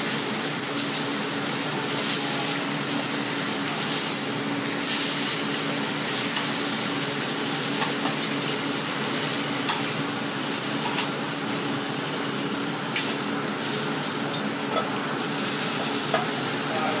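Meat frying in oil and fat in a stainless steel skillet over a gas burner, sizzling steadily, with a few light clicks scattered through it.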